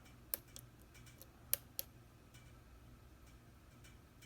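Faint, irregular small metal clicks of a hook pick and tension wrench working the pins of a security-pinned Schlage Everest lock cylinder; the sharpest click comes about a second and a half in.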